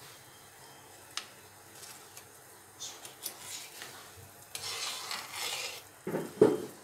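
A metal ladle scraping and stirring in a metal kadai of boiling sugar syrup, skimming off the scum that the added milk has raised. It ends with a couple of loud knocks of metal on metal near the end.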